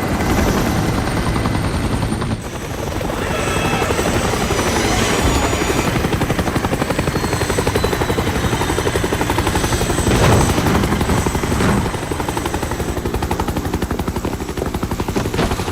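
Helicopter rotors chopping steadily as the craft flies overhead, with a change in the sound about two seconds in.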